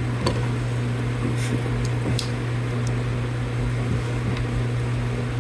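Steady low mechanical hum, with a few faint light clicks in the middle.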